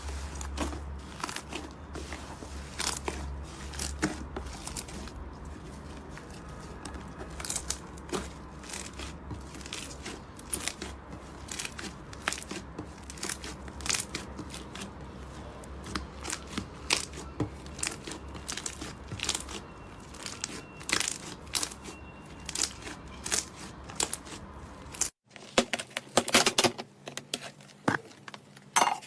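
Slime being pressed and stretched by hand, crackling with many small irregular pops. About 25 seconds in it cuts abruptly to another clip where the crackling is denser and louder.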